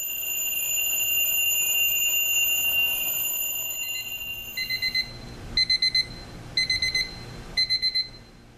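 Seiko QHK031 battery alarm clock sounding its two alarm modes. First comes the bell alarm, a continuous high ring that swells in the first second and stops about five seconds in. Then the beep alarm follows, bursts of about four quick beeps, one burst a second.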